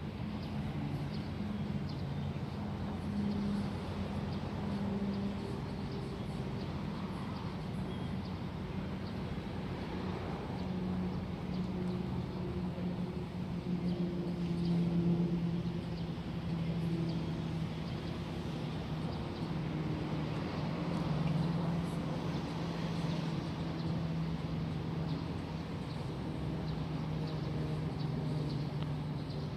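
Low engine hum that drifts slowly in pitch, over a steady outdoor background noise.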